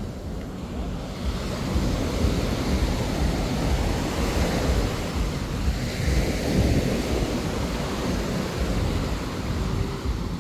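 Small waves washing up onto a sandy beach, with a louder wash of surf around the middle, over a low rumble of wind on the microphone.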